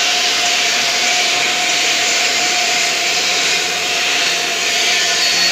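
TIG (GTAW) welding arc with argon shielding gas on thin stainless sanitary pipe: a loud, steady hiss with a faint even tone through it.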